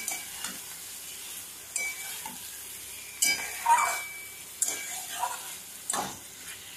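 Fried potato wedges sizzling in spice paste and oil in a kadai while a spatula stirs them, scraping the pan several times over a steady frying hiss.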